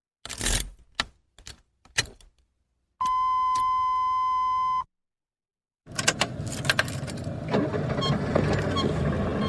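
A car being started. First a rattle of keys and a few clicks, then a steady electronic beep for about two seconds. After a pause the engine cranks, catches about six seconds in, and settles into steady running.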